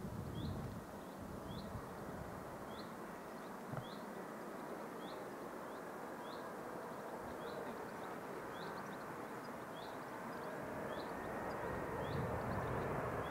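Distant Boeing 747 on final approach: a steady jet rumble that grows louder over the last few seconds. Over it, a small bird chirps again and again, a short high chirp about every two-thirds of a second, and there is a single light knock about four seconds in.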